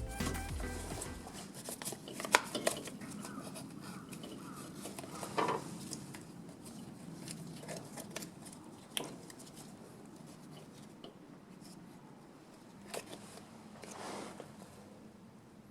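Music ends in the first second or so. After that the room is quiet, with a few scattered light clicks and clinks, the sharpest about two seconds in.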